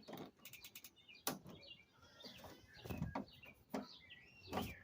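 Small birds chirping in short, quick calls, with a few knocks and clicks from handling the air conditioner's plastic parts.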